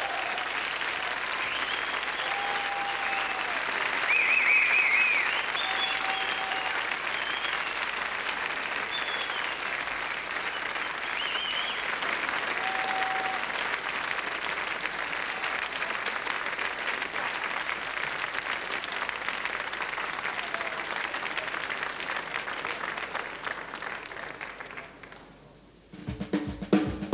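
Audience applauding with scattered whistles, the clapping fading out about 25 seconds in. Near the end a jazz band starts the next tune with sharp rhythmic hits on drum kit and Hammond organ.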